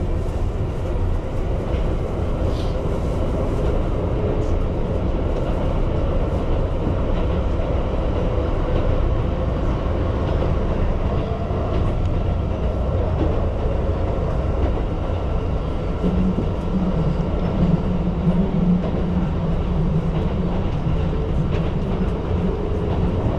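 Keihan Line train running between stations, heard from inside the carriage: a steady low rumble of wheels on rails. A low hum joins in for several seconds past the middle.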